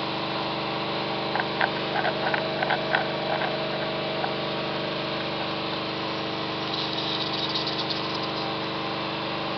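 A steady electrical hum made of several fixed pitches, like a small motor running. A scatter of light clicks comes between about one and three and a half seconds in.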